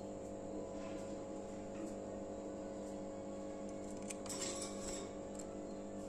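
Steady low hum, with faint scratches and a short high raspy burst about four seconds in, as a pair of Fischer's lovebirds move about a wire cage.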